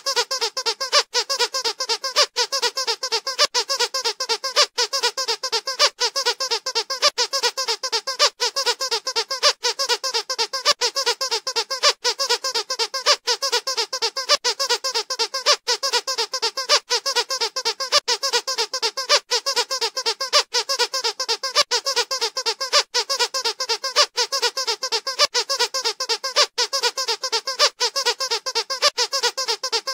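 Rubber squeaky dog toy squeezed over and over in quick succession, a steady stream of squeaks several times a second.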